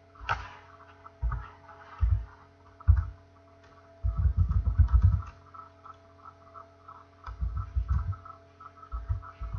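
Typing on a computer keyboard: irregular keystrokes, singly and in short quick runs, heard as dull low thumps with light clicks, over a steady electrical hum.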